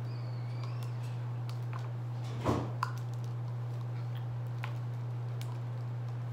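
Scattered light clicks and taps from handling plastic Play-Doh tools and containers, with a louder short scrape about two and a half seconds in, over a steady low electrical hum.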